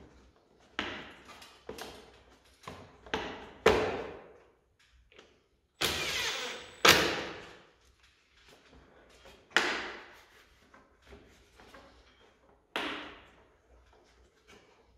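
Sharp knocks and clatters of motorcycle fairing parts being handled and fitted, about eight separate hits with short decays, with a longer scraping clatter about six seconds in followed by the loudest knock.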